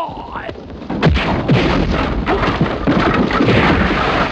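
Kung fu fight sound effects: a brief yell at the start, then from about a second in a dense, continuous flurry of hits and crashes over a low rumble.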